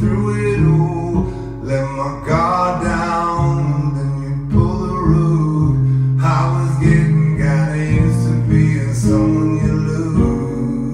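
Acoustic guitar strummed, its chords changing every second or so.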